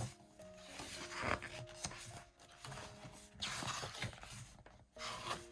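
Glossy photobook pages being turned, with paper rustling and sliding in a few swells, the longest a little past the middle. Soft piano music plays underneath.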